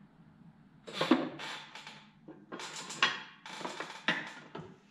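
Metal clunks and scrapes as the Bridgeport vari-speed head's top housing is lowered onto the head and shifted into place: a run of separate knocks starting about a second in.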